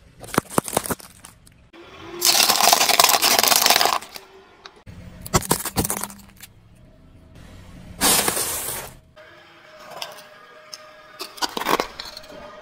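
Car tyre crushing small objects in several separate crushes: sharp cracks and crunches of plastic drink cups bursting, a long hissing rush about two seconds in, and a wire strainer cracking under the tyre near the end.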